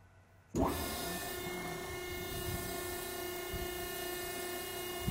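A hydraulically driven car-wash wrap-around washer brush and its power pack start up suddenly about half a second in. They then run steadily: an even mechanical hum with several steady tones as the cloth brush spins.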